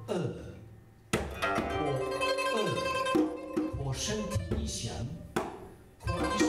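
Pipa (Chinese lute) playing: a handful of sharp plucked and strummed attacks, each ringing out and fading, with some notes bent in pitch.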